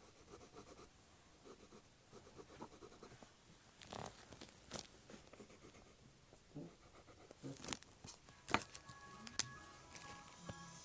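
Faint scratching of a pencil or marker on paper while drawing, with a few sharp clicks, and faint music from a phone's TikTok videos in the background, clearer near the end.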